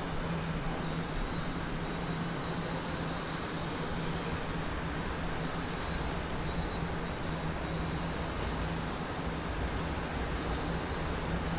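JR 209 series electric commuter train approaching slowly in the distance, a low rumble that grows from about halfway, over a steady hum and hiss.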